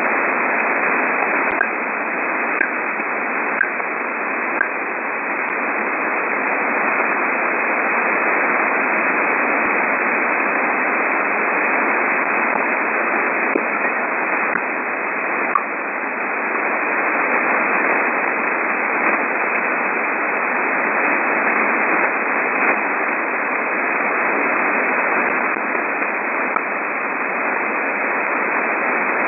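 Shortwave radio receiver tuned around 12.9 to 13.2 MHz, giving a steady static hiss with faint short pips or ticks at random: about one a second early on, then a few scattered ones. The ticks are of unknown origin.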